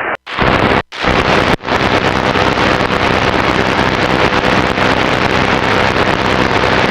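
Loud, even shortwave receiver hiss and static with a faint steady hum, broken by short dropouts about a quarter second and again about a second and a half in.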